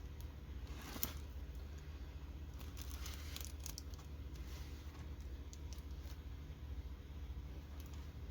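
Diamond painting kit packaging being handled: faint rustling and crinkling, with one sharp click about a second in and a few lighter ticks around three to four seconds in.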